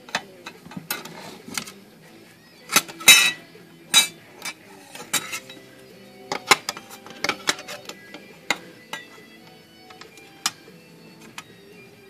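Irregular metal clicks and clinks of a loose steel foot bracket being handled and fitted against the frame of a Remington portable typewriter, the loudest knocks about three seconds in. Faint music plays underneath.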